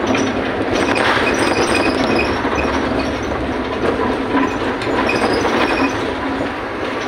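Inside a Mercedes-Benz Citaro O530 city bus on the move: engine and road noise with steady rattling and clinking from the cabin fittings. The rattling is the sign of a worn, neglected bus nearly 15 years old that shakes all over.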